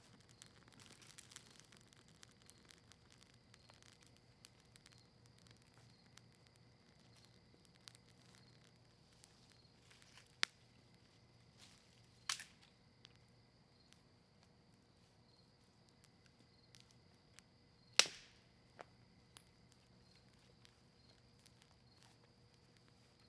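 Campfire of maple wood and cedar leaves crackling faintly, with scattered small snaps and three louder sharp pops, the last and loudest about three quarters of the way through. A faint steady high tone sits underneath.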